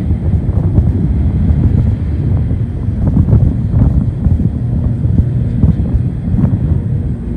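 Intermodal freight train of trailers on flatcars rolling past: a steady low rumble of steel wheels on the rails, with wind buffeting the microphone.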